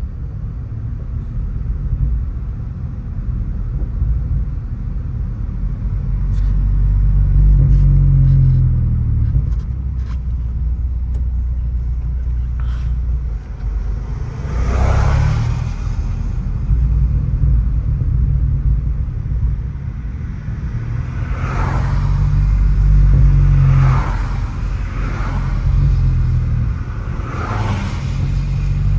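Honda Civic Si with a Yonaka 3-inch exhaust and catless downpipe being driven, its exhaust giving a deep steady drone that swells louder twice. Several short rushing sounds come over it in the second half.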